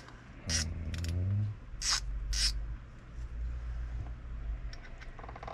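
Handling noise from a spinning reel being worked on by hand: a few short hissy scrapes and, near the end, a brief squeak, with a short murmured voice early on.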